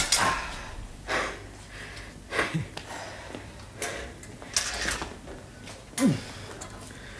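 Men breathing hard and irregularly, winded from a sword-fencing bout: a string of short gasps and breaths about a second apart, with a short falling vocal sound about six seconds in.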